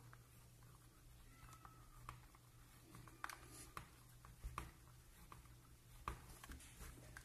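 Faint scraping and scattered small clicks of a drill bit being twisted by hand into the plastic top of a Canon colour ink cartridge, boring a refill hole.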